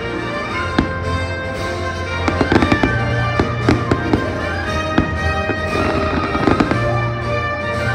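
Aerial fireworks going off in a string of sharp bangs and crackles, thickest in the middle, over loud show music playing throughout.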